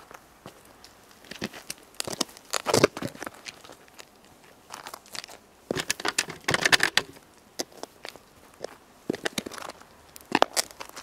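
Baguette crushed under Buffalo boots on gritty pavement: the crust crunches and crackles in three bursts, about two, six and ten seconds in.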